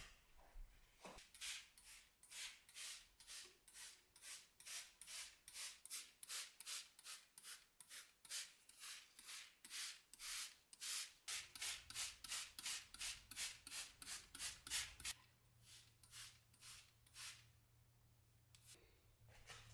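Faint rhythmic rubbing strokes, about two to three a second, back and forth, thinning out and stopping near the end.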